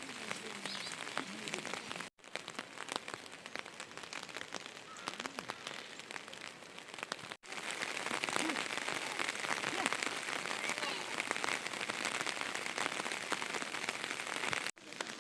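Steady rain falling, with many individual drops striking surfaces. Brief dropouts at about two, seven and fifteen seconds break it up, and after the second one the rain is louder.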